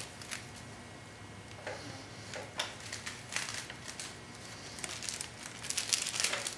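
Dry broom corn rustling and crackling as the stitched broom is handled, in scattered crackles that grow denser near the end.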